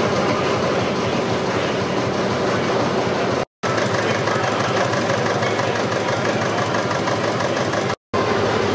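Stationary engines running with a rapid, even mechanical clatter. The sound cuts out abruptly twice for a split second, once about three and a half seconds in and once near the end.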